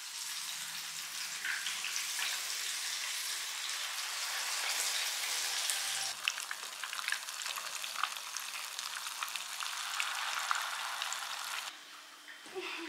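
Banana cake batter sizzling as it fries in a pan on a gas stove, a steady hiss with occasional light clicks of utensils against the pan and bowl. The sizzle cuts off suddenly near the end.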